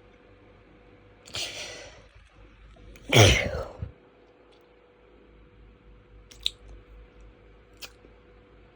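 A person sneezing twice in a hitchy sneezing fit, about two seconds apart, the second sneeze louder. A couple of faint clicks follow.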